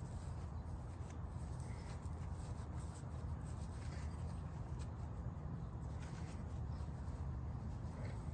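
Faint scratchy rubbing of a rag on a chrome window crank as it is polished and handled, with a few light clicks, over a steady low hum.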